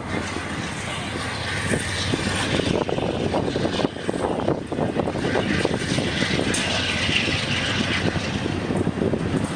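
GE P42 diesel locomotive running, a steady loud rumble from its V16 prime mover mixed with the noise of the train.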